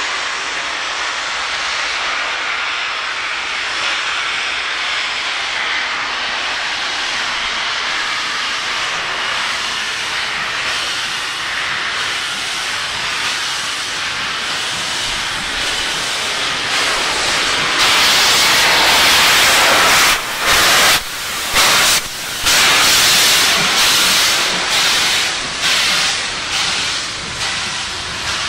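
Steam hissing from BR Standard Class 7 steam locomotive 70000 Britannia as it pulls away, a steady hiss that grows much louder about two-thirds of the way through, with several short breaks and surges as the engine passes close by.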